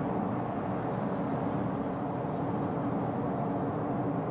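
Steady road noise inside the cabin of an ORA Funky Cat electric hatchback cruising at motorway speed, a low, even rush with no engine note.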